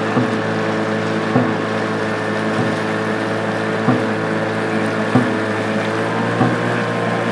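Dragon boat drum struck six times at an even pace, about once every 1.25 seconds, beating out the paddlers' stroke rate. Underneath runs the steady drone of a boat engine.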